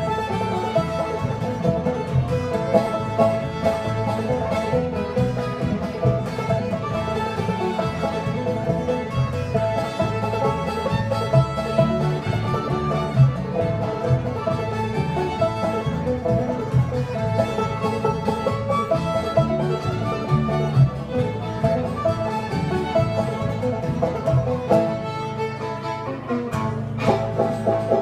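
Old-time Appalachian string band playing a lively fiddle tune, with fiddle, banjo, guitar and upright bass. The tune comes to a close near the end.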